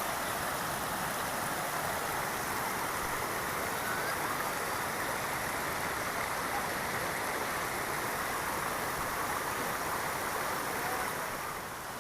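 Floodwater from an overflowing reservoir rushing steadily across a road, a constant rush of water.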